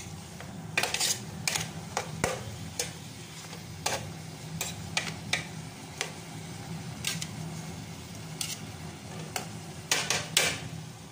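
Whole chicken on onions in smen and oil in a metal pot as it heats: scattered crackles, clicks and knocks as the chicken is shifted in the pot, with a cluster of louder knocks near the end, over a faint sizzle and a steady low hum.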